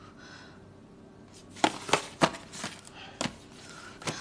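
Irregular sharp knocks and clatters of household objects being handled and shifted about during a search of drawers and shelves: about six in a little over two seconds, starting about a second and a half in.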